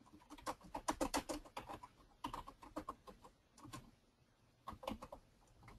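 Typing on a computer keyboard: faint, irregular keystrokes in quick runs with short pauses.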